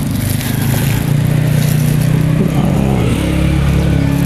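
A small engine running steadily, its pitch shifting slightly a couple of times.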